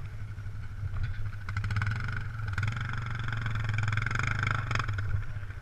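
Dirt bike engine running under load, its revs and loudness building steadily over a few seconds as it pulls along.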